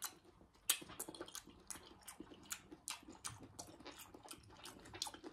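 A person chewing a mouthful of melon, with soft wet mouth clicks, about three a second.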